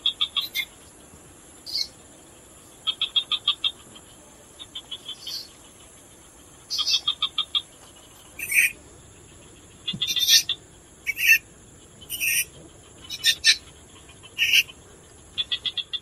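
Eastern grass owl (Tyto longimembris) calling: about a dozen bouts a second or so apart, some rapid trains of short chittering notes and some single brief calls, over a steady high-pitched background buzz.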